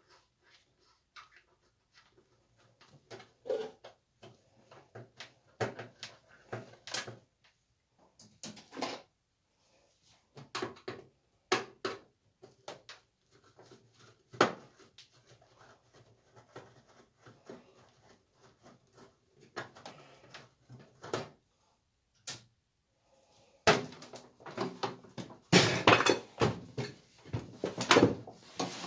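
Screwdriver working screws out of a microwave oven's sheet-metal casing: scattered metallic clicks, scrapes and knocks. From about 24 seconds in, a louder run of clattering knocks as the microwave is turned over.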